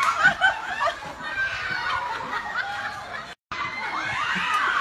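Several people laughing and giggling, with bits of chatter mixed in; the sound cuts out for a split second about three and a half seconds in.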